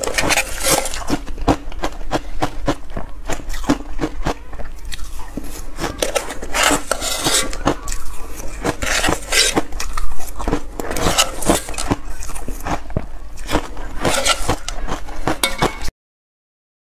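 Metal spoon scraping and clinking against a stainless steel bowl of dense reshaped ice, mixed with crunching bites of the ice, in quick irregular cracks. The sound cuts off suddenly near the end.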